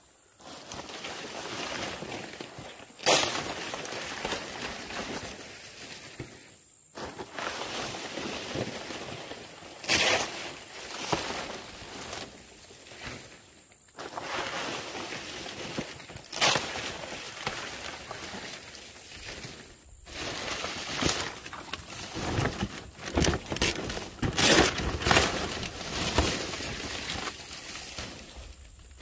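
Fresh fan-palm leaves being handled and stacked: a rustling swish of the stiff leaf segments with sharp slaps and brushes as fronds are dropped and laid on top of one another, in several short stretches, busiest near the end.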